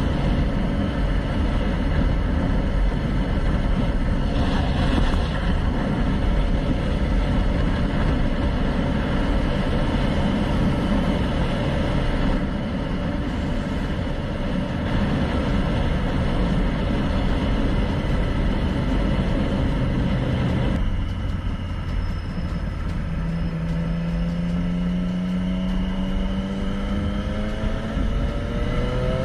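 Motorcycle engine running under heavy wind and road noise. The sound changes abruptly about two-thirds of the way through, and then the engine note rises steadily as it accelerates.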